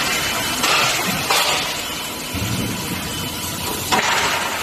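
Steady noisy hum of a running induction bar-end heating machine, with short sudden hisses a little under a second in, again about half a second later, and near the end.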